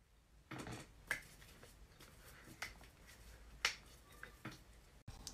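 Hands struck together in quick gestures: several sharp smacks spaced about a second apart, with softer hand rustles between them.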